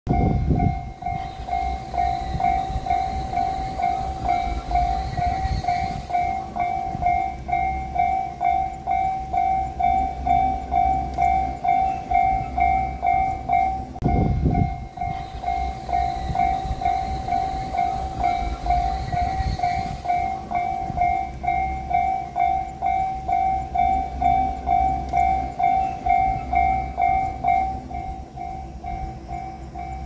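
Japanese railway level-crossing warning bell ringing its repeated "kan-kan" alarm, about two strikes a second, signalling an approaching train. A low rumble comes at the very start and again about halfway through, and the bell grows weaker near the end.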